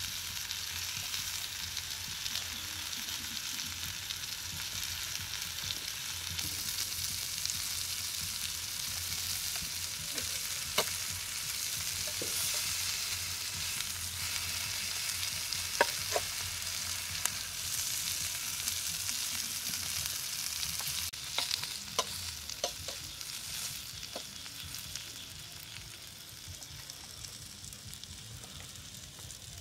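Chicken and bell pepper sizzling on a hot stone slab over a wood fire: a steady frying hiss, with a few sharp clicks of a metal blade on the meat and stone. The sizzle fades near the end.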